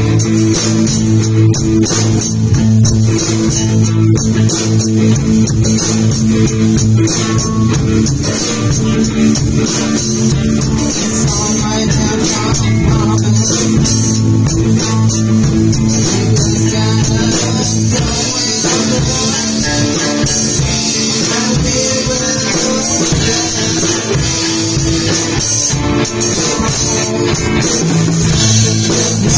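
A rock band jamming live: two electric guitars and a drum kit playing together in an improvised warm-up jam, with the drums keeping a steady beat.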